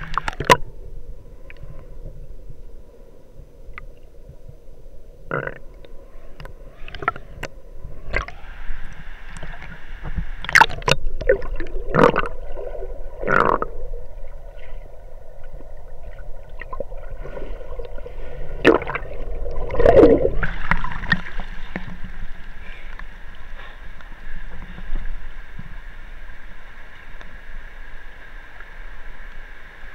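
Waterfall water rushing and gurgling, heard muffled, with a scattering of sharp knocks and splashes, most of them between about ten and twenty-one seconds in.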